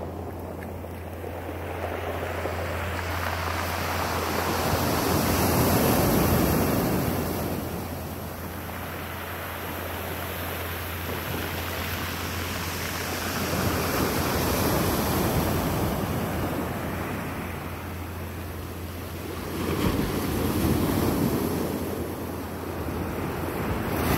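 Ocean surf breaking and washing up a cobble beach. It rises and falls in three slow surges several seconds apart.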